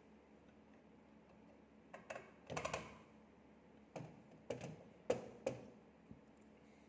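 A handful of small, sharp clicks and taps, some in quick succession, from hard parts and tools being handled while a graphics card is taken apart.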